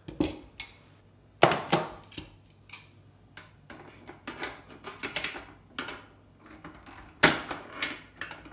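Irregular clicks, clacks and knocks of hand tools against the plastic case of an electronics box being taken apart for scrap, loudest about a second and a half in and again near the end.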